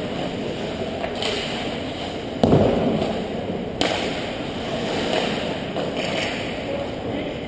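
Ice hockey game in an echoing indoor rink with play at the far end. A heavy, low thud comes about two and a half seconds in, and a sharp knock follows a little over a second later.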